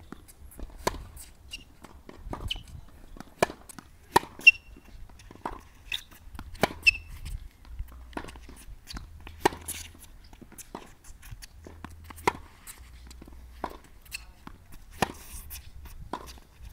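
Tennis balls struck with racquets and bouncing on a hard court in a baseline rally: a run of sharp pops about a second apart. A few short squeaks, typical of tennis shoes on the court, come between the hits.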